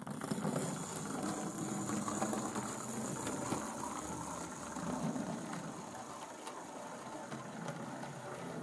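Hornby Railroad GWR 101 class 0-4-0 OO gauge model tank locomotive running slowly along the track: a steady whir of its small electric motor and gears.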